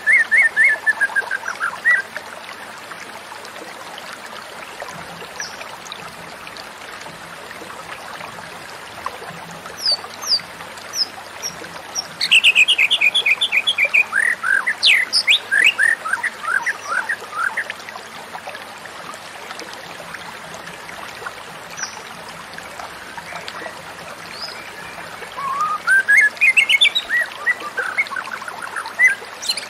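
White-rumped shama singing: phrases of rapid, clear whistled notes and sweeping rising and falling glides. One phrase comes at the start, a longer one about halfway through, and another near the end, with scattered single notes in between over a steady hiss.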